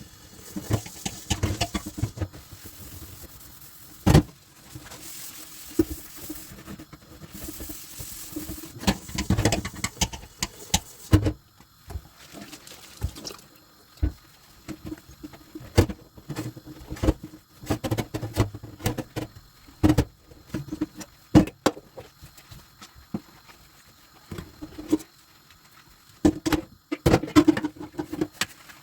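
Dishes being washed by hand at a sink: tap water running in spells, with frequent clinks and knocks of dishes and utensils.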